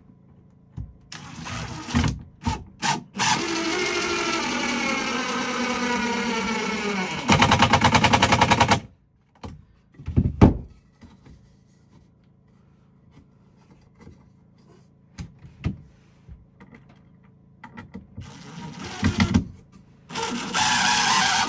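A handheld power tool runs for about four seconds, then gives a louder rapid hammering for about a second and a half. A few knocks follow, and the tool runs again near the end.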